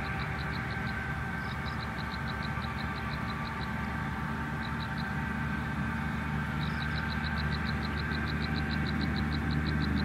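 A steady low motor-like drone, with a fast, even series of short high-pitched chirps, about five a second, that stops briefly around the middle.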